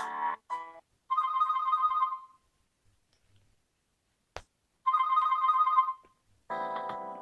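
UMX mobile phone ringtone imitating an old telephone bell: two trilling rings, each a little over a second long, about three and a half seconds apart. A single click falls between them, and near the end a different, musical ringtone starts.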